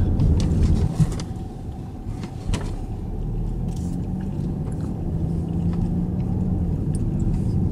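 Car driving at low speed, a steady low rumble of road and engine noise heard from inside the cabin, with a couple of light knocks about one and two and a half seconds in.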